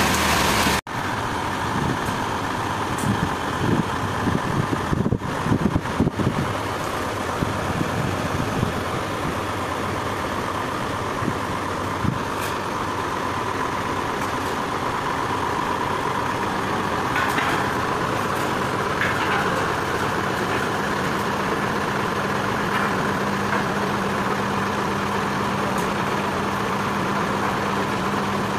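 Sawmill machinery running steadily, a motor hum with a constant whine, with a few short knocks and clatters in the first several seconds.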